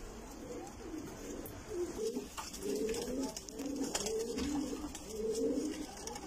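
Several domestic pigeons cooing, their low coos overlapping, growing fuller about two seconds in.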